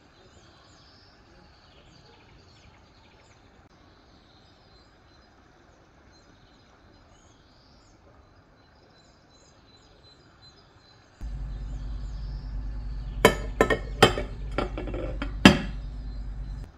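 Glass baking dish knocked and clinked several times as it is handled, with a steady low hum that starts suddenly about two-thirds of the way in and stops just before the end. Before that there is only a faint background with faint high chirps.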